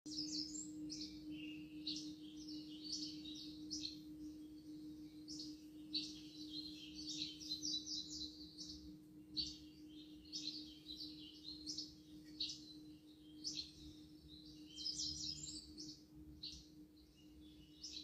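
Birds chirping and twittering in quick repeated runs, over the steady low hum of a ringing singing bowl that slowly fades.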